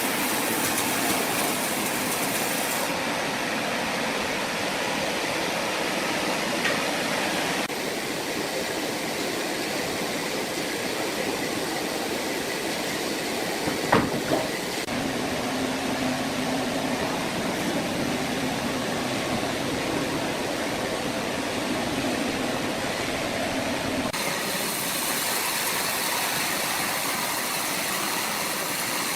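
Sawmill machinery running with a steady mechanical noise. A single sharp knock comes about halfway through, and a low steady hum joins for the next several seconds.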